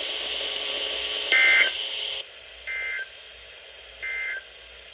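NOAA Weather Radio end-of-message data bursts: three short two-tone digital chirps about a second and a half apart, the first the loudest, following a second of radio hiss.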